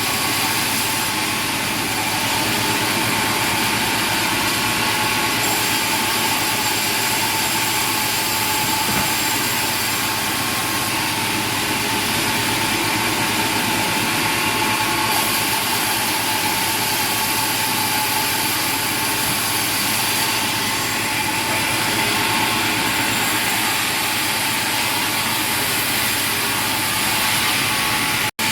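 Steady running machinery: a constant, loud mechanical noise with a steady whine, cutting out for an instant near the end.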